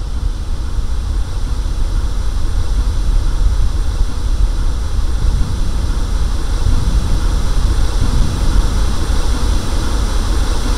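Loud, steady low rumble with a hiss above it, a sound-design drone on a film soundtrack; it swells over the first few seconds and then holds.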